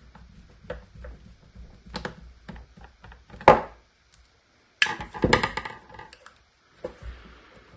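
Clicks, taps and a sharp knock of hard plastic parts being handled as a cordless impact driver's housing is taken apart, with a short burst of clattering about five seconds in.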